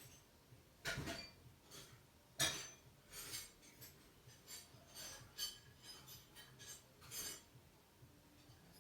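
Scattered small clicks, clinks and rubbing of parts being handled during a toilet fill valve installation, with the sharpest clicks about one and two and a half seconds in.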